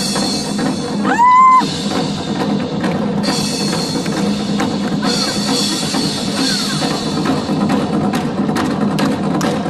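Live percussion ensemble drumming in a dense rhythm, with stretches of cymbal-like shimmer. A loud call, rising in pitch and then held, cuts through briefly about a second in.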